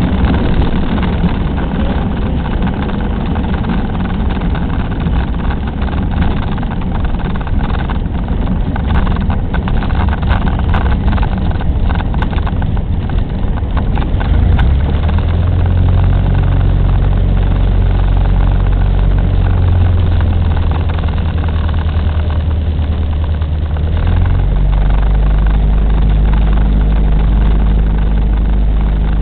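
Cessna 150's four-cylinder Continental engine running at low power. It is rumbly with scattered rattles and knocks for the first half. It then settles into a steady low drone that changes note about 24 seconds in.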